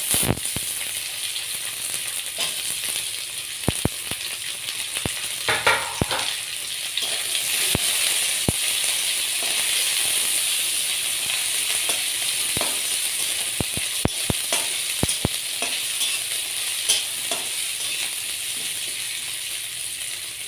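Boiled jackfruit seeds sizzling as they fry in hot oil in a karahi, a steady frying hiss broken by occasional sharp clicks.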